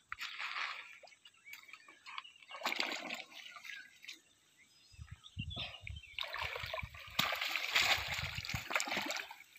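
A hooked mahseer thrashing in the shallows as it is scooped into a landing net, in bursts of splashing that are loudest over the last three seconds. Dull low thumps run underneath from about halfway.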